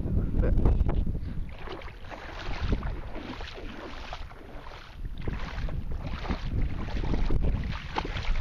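Wind buffeting the microphone outdoors: an uneven low rumble with a rushing hiss that swells and eases, dipping for a few seconds in the middle.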